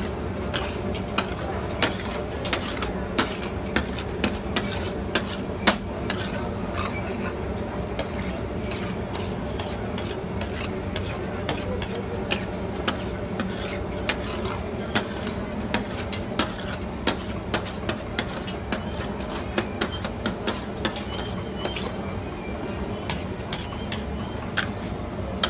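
Metal spatula scraping and clinking on a large flat metal griddle as chunks of meat are stirred and turned, with sharp clinks about once or twice a second over steady background noise.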